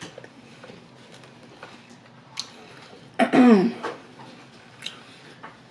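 Close-miked chewing and small mouth clicks of a person eating chicken nuggets and a Big Mac, with one short voiced sound from the throat, falling in pitch, about three seconds in.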